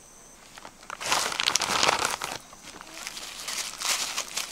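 Plastic crinkling and crackling as it is handled, loudest in a run of bursts starting about a second in, with more near the end.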